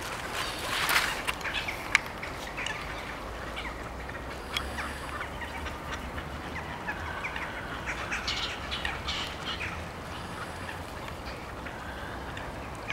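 A crowd of waterbirds calling, with ducks quacking; many short calls overlap throughout, busiest about a second in, over a low steady rumble.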